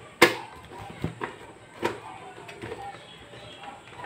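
Sharp clicks and knocks of a screwdriver and circuit board against the monitor's sheet-metal chassis as the power board is fitted. Three distinct knocks: the loudest about a quarter second in, then two more at about one and two seconds in.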